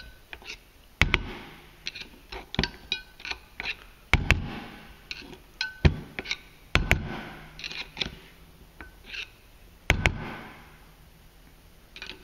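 A screwdriver clicking and scraping against the metal parts of a Yamaha Viking's wet centrifugal clutch as its spring-loaded shoes are worked down flat onto their pins. The result is a string of irregular sharp metal clinks with brief ringing, the loudest about one, four, seven and ten seconds in.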